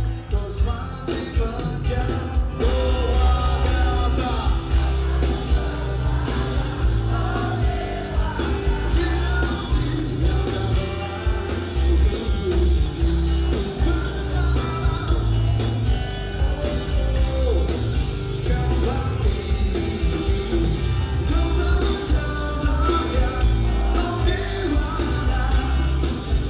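Live rock band through a PA: a male lead singer singing over electric guitars, bass and drums. The cymbals come in about two and a half seconds in.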